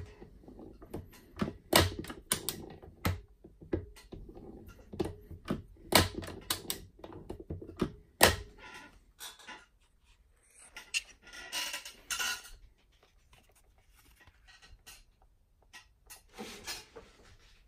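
Schaublin 70 lever-operated turret carriage worked by hand: a run of sharp metal clicks and clunks as the capstan handwheel and slide are moved. About two-thirds through comes a short stretch of rubbing.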